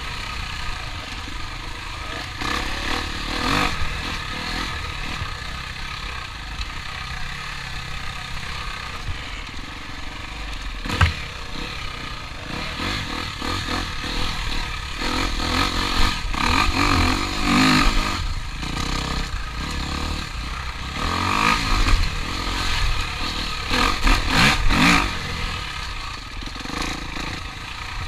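Engines running and revving, rising and falling in pitch, with some clatter and a sharp knock about eleven seconds in.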